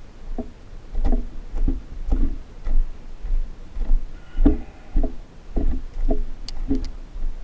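A dozen or so short hollow knocks and clicks of a plastic-bodied cordless hedge trimmer being handled, one or two a second at uneven spacing, each with a brief low ring. The motor is not running.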